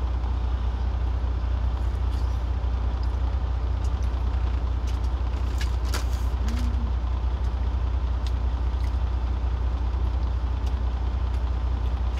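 Semi truck's diesel engine idling, a steady low rumble heard inside the cab, with a few faint clicks over it.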